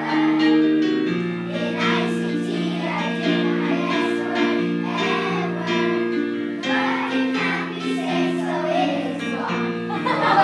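Music: a group of children singing over held accompaniment chords that change every second or so.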